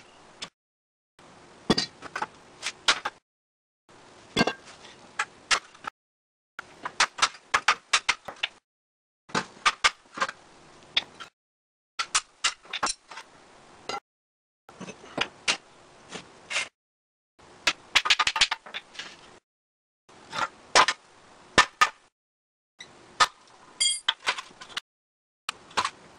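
Steel leaves of a Model T rear leaf spring and hand tools clinking, knocking and scraping against each other and the concrete floor as the spring is taken apart. The sound comes in snatches of about two seconds, each with several sharp clanks, separated by short dead gaps.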